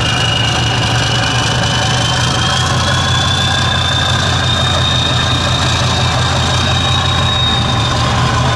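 Tatra 6x6 trial truck's diesel engine running steadily at low revs as the truck crawls over rough ground, with a thin high whine that slowly rises in pitch and then holds.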